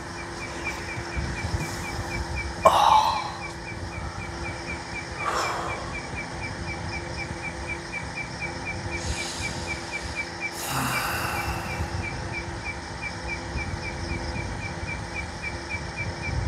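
Night insects chirping: one insect keeps up a rapid, even, high-pitched pulsing chirp, over a low steady hum, with a few brief rustling swells.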